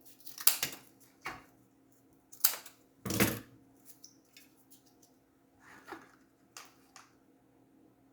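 Handling noises: a string of short knocks, clicks and scrapes, irregular and loudest about three seconds in, over a faint steady hum.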